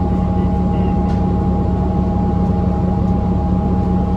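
2014 New Flyer XDE40 diesel-electric hybrid bus running at a steady pitch: a low drone with a steady, higher whine over it, a sound called horrible, downright awful.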